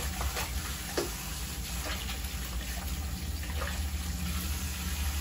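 Bathroom tap running steadily into a sink while a microfibre cloth is rinsed under it, with a few splashes about a second in. A steady low hum sits underneath.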